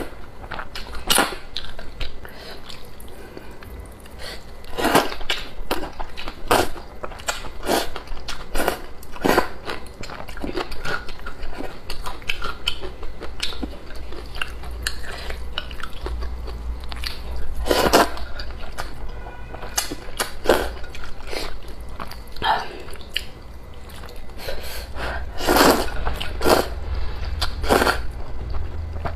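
Close-miked mouth sounds of a person eating wide wheat noodles in soup: repeated slurps of noodle strands with chewing in between. The loudest slurps come near the start, around the middle and a few seconds before the end.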